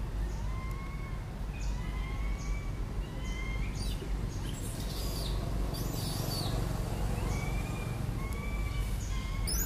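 Animal calls: short arching calls repeated about once a second, with faint high chirps in the middle and a steady low rumble underneath.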